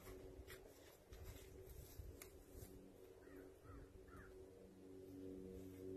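Near silence: faint outdoor ambience with a steady low hum, a few faint clicks and three short faint bird calls about three to four seconds in.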